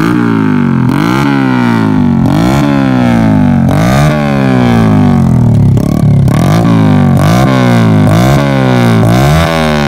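Yamaha Jupiter Z underbone motorcycle's four-stroke single-cylinder engine, revved in repeated quick throttle blips through an aftermarket KJS muffler. Each rev rises sharply and falls back, about one to two a second.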